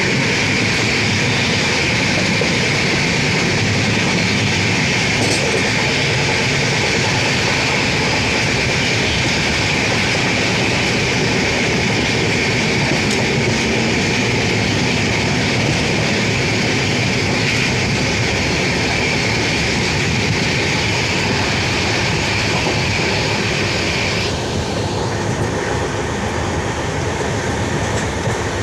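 Indian Railways passenger train running at speed, heard from a coach window: a steady rumble of wheels on rails with rushing wind. A high whine rides over it and fades out near the end.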